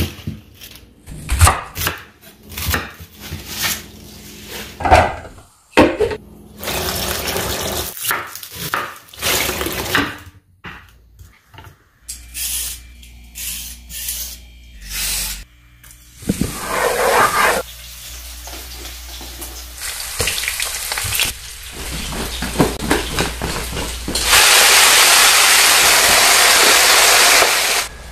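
Kitchen food-preparation sounds: bok choy being handled and rinsed, with scattered knocks and clatter of utensils. Near the end a loud, steady rush of running tap water stops abruptly.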